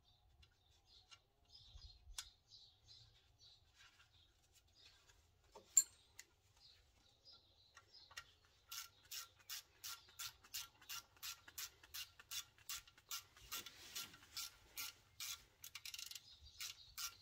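Hand ratchet clicking about three times a second as the small retaining screw that holds the new brake rotor to the hub is run in. Before that there are faint scattered ticks and one sharp click about six seconds in.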